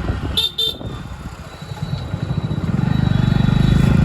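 Two short vehicle-horn toots about half a second in, amid street traffic. A nearby engine runs with a fast low pulse, growing louder from a little past halfway.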